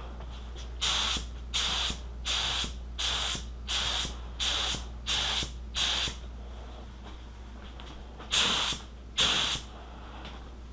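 Black Widow HTE spray gun spraying clear coat in short trigger pulls along a panel's edges, giving a series of brief hissing bursts. Eight come in even succession, then after a short pause two more.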